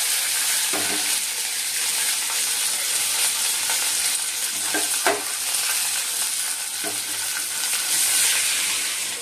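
Tadka frying: curry leaves, mustard seeds and red and green chillies sizzling in hot oil in a small steel pan, a steady loud sizzle. Near the end water is poured into the hot oil, and the sizzle swells briefly.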